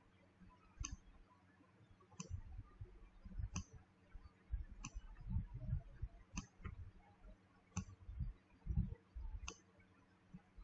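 Faint computer mouse clicks, about one every second and a half, as on-screen labels are dragged and dropped, with soft low thuds in between.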